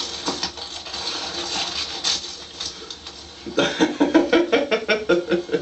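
Light scuffs and taps, then, about three and a half seconds in, a man's voice in a quick run of short, evenly repeated sounds, about five a second, lasting about two seconds.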